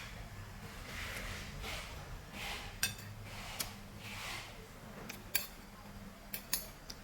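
Eating at close range: soft recurring chewing or slurping noises, with a handful of sharp clicks of cutlery against a dish.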